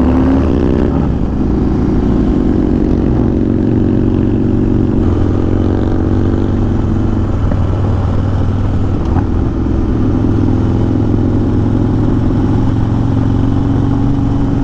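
Harley-Davidson Dyna V-twin running at road speed through a Bassani Road Rage exhaust, a steady loud engine note that shifts in pitch a few times as the throttle changes.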